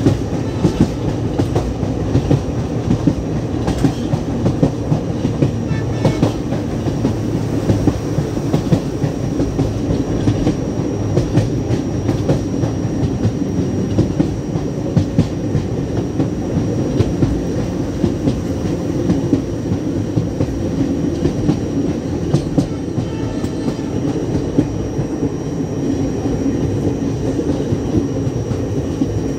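Train running at speed, heard from on board: a steady rumble of wheels on rails with frequent sharp clickety-clack over the rail joints.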